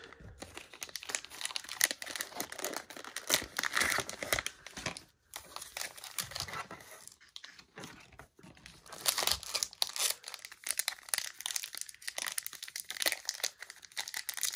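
Plastic and foil wrappers of trading-card packs crinkling and tearing as the packs are torn open and handled. The sound is a dense run of irregular short crackles, with a couple of brief lulls.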